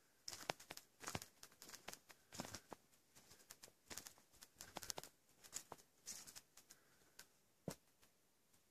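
Faint footsteps crunching on a forest path strewn with dry conifer needles, coming as irregular crackling steps. A last sharp step comes near the end, and the walking stops.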